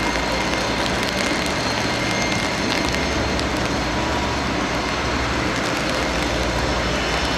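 Steady jet aircraft noise on an airport apron: an even rushing hiss with a faint high whine held at a constant pitch.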